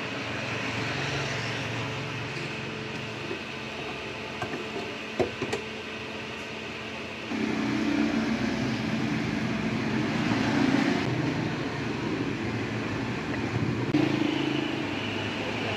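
Steady street traffic noise from passing motor vehicles, with a few short knocks about five seconds in; the noise grows louder a little past halfway.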